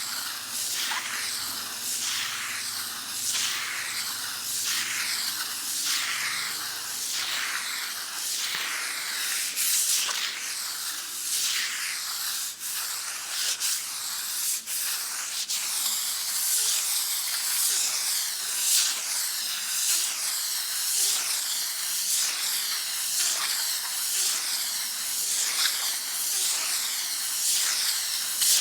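Sandpaper rubbed back and forth on a wall in steady, even strokes, a rasping scratch just over once a second.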